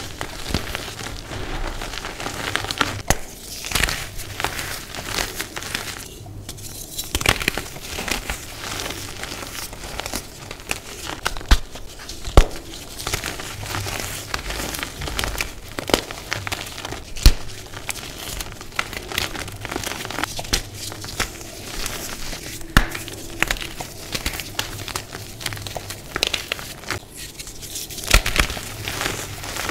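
Hands crushing and crumbling chunks of brown and green dyed gym chalk into loose powder: a continuous dry crunching, with many sharp cracks as pieces snap and a few standing out louder than the rest.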